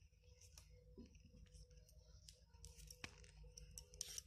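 Near silence: faint rustles and small clicks of plastic macrame cord being wound and pulled tight around a bundle of cord, with a slightly louder rustle near the end, over a faint steady hum.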